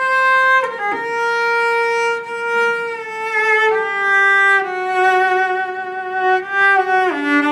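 Cello bowed in long held notes in a slow line that steps down in pitch, each note sustained for a second or more.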